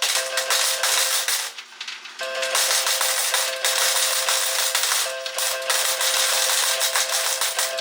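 IGT Wild Cherry slot machine counting up credits: a fast, steady run of clicks over a held two-note electronic tone. It breaks off briefly about a second and a half in and again around five seconds.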